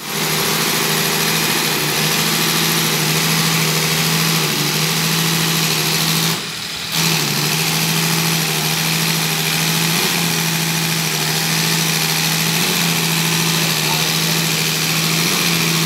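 Diesel injection pump test bench running a six-cylinder Mercedes injection pump during calibration: a steady mechanical hum over a constant hiss. The sound drops briefly about six and a half seconds in.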